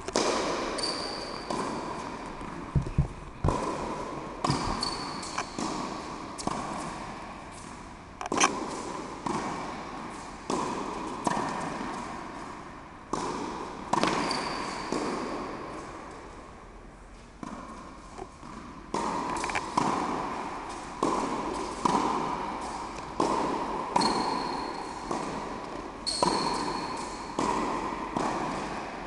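Tennis ball struck with a racket over and over in a volley rally, about one hit a second. Each sharp pop rings on in the reverberant indoor hall.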